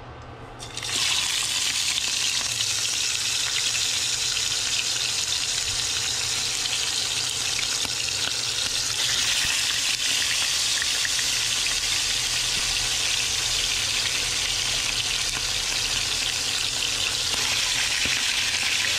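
A large sea bream frying in very hot oil: a loud, dense sizzle that starts suddenly about a second in and then holds steady.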